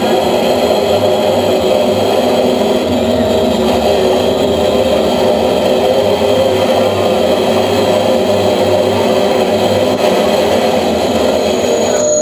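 Live harsh noise music: a loud, dense, steady wall of droning, engine-like noise with held tones layered through it.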